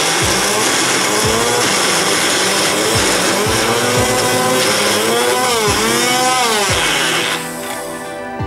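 Small bullet-style Mix n Blend blender running, grinding red chilies with shallots, garlic and candlenuts into a spice paste; its motor pitch slides up and down as the chunks shift, and it stops about seven seconds in.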